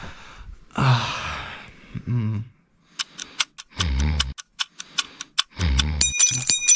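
A sigh about a second in, then an alarm clock ticking fast, a few ticks a second, with two low snores between the ticks. A clock's alarm bell starts ringing near the end.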